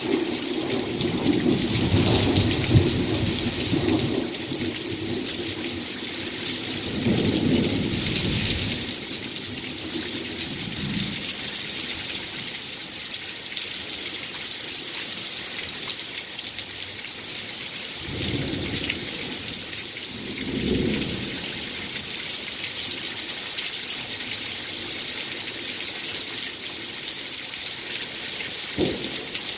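Heavy rain pouring steadily in a thunderstorm, with low rolls of thunder rumbling several times, the strongest about a quarter of the way in.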